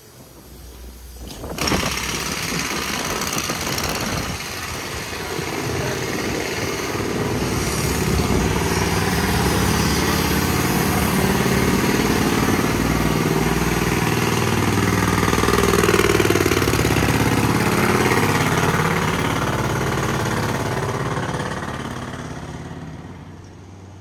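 Loud, steady din of construction machinery at a street excavation where an excavator is working. It starts abruptly about one and a half seconds in and fades away near the end.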